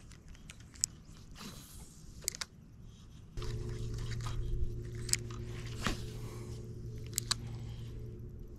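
Spinning reel being cranked to retrieve line: a steady low whirr starts about three and a half seconds in and keeps going almost to the end. Scattered small clicks and scrapes of the rod and reel being handled run throughout.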